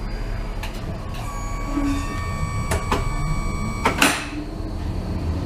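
Tram passenger doors closing on a Bombardier Flexity low-floor tram. A steady warning tone with several overtones sounds for about three seconds, with a few clicks. It ends as the doors shut with a sharp knock about four seconds in, over a low rumble.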